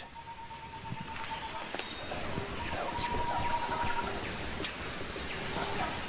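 Tropical rainforest ambience: a steady high-pitched insect drone and a lower insect trill, with scattered bird chirps and a few faint clicks.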